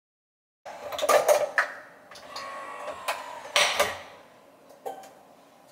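Clacks and clicks of a ceramic mug and a De'Longhi coffee machine being handled on a kitchen counter, with a cluster of hard clacks about a second in and more around the middle.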